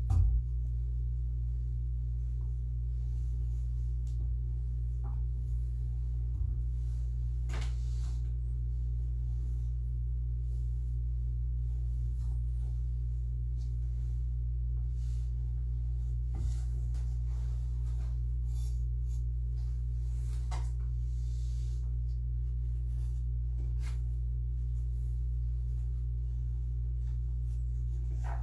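A steady low hum fills a quiet room, with a brief thump right at the start and scattered faint clicks and knocks.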